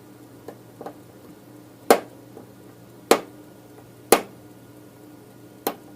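Four sharp knocks of a hard object being struck, the first three about a second apart and the last after a longer gap, with two faint clicks before them.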